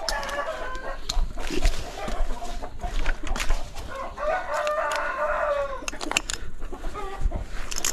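A rooster crowing once, a long call about four seconds in, with shorter chicken clucks near the start. Scattered rustles and clicks of footsteps through dry leaf litter run underneath.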